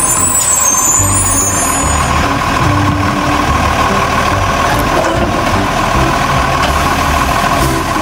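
Iveco garbage truck's diesel engine running as the truck drives slowly along the street, a steady heavy rumble with a high squeal in the first couple of seconds.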